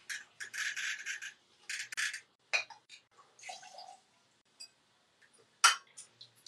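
Brandy poured from a bottle into a bar jigger and shaker in short splashing pours, with a few sharp clinks of glass and metal bar tools; the loudest is a single sharp clink a little before the end.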